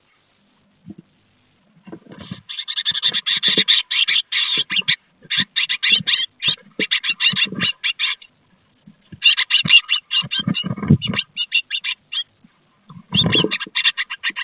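Two great tits fighting inside a wooden nest box, an intruder attacking the nesting female. After a couple of silent seconds come three bouts of rapid, rattling calls, mixed with short thumps of wings and bodies against the box walls.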